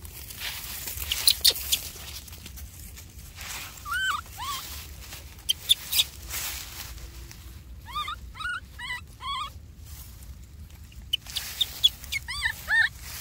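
Baby macaque giving short, high whimpering cries, each rising then falling, in three little runs of two to four cries. Sharp dry crackles and clicks come between them.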